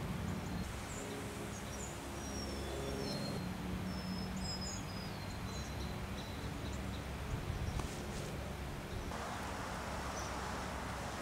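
Small birds chirping and whistling, short high calls and sliding notes, over steady outdoor background noise with a low hum.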